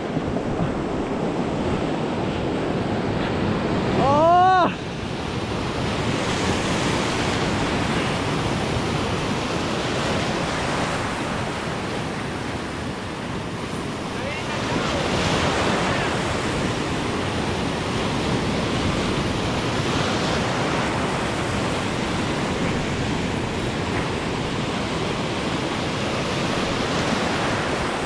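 Surf washing in over a rocky shore, with wind buffeting the microphone. About four seconds in, a short shout rises and falls in pitch.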